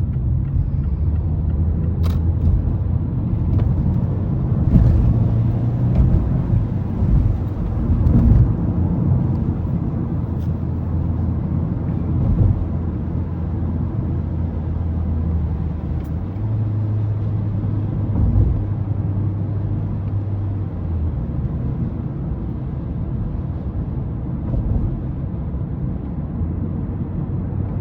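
Mazda 3 engine pulling hard in a low gear, heard from inside the cabin, its note shifting in steps as the revs change. Tyres hiss on the wet road beneath it.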